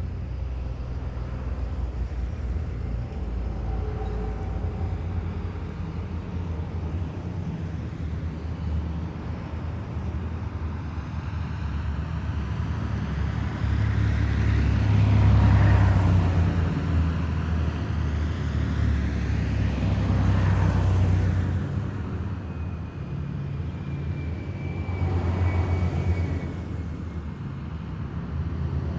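A column of heavy military vehicles driving past with a continuous low engine rumble. Three vehicles pass close, each a louder swell: about halfway through, at about two-thirds, and near the end.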